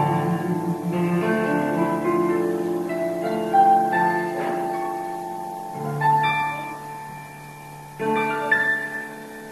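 Slow instrumental music with sustained keyboard chords; a new chord sounds about six seconds in and again about eight seconds in, and the music fades away near the end.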